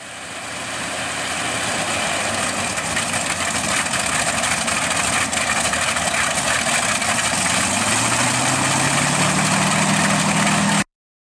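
Two Bristol Hercules 14-cylinder sleeve-valve radial aero engines running together with their propellers turning, a loud steady engine noise. About eight seconds in, a low tone rises slightly in pitch, and the sound cuts off abruptly near the end.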